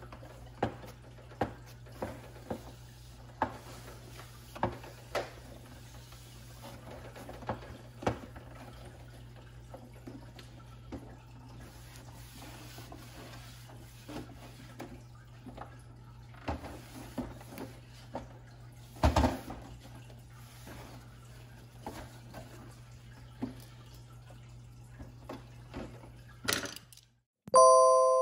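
Paper towel rubbing and wiping over the clock's plastic front cover, with scattered taps and knocks from handling and a louder knock partway through, over a steady low hum. Near the end, the Seiko Melodies in Motion clock starts playing its bell-like chime melody.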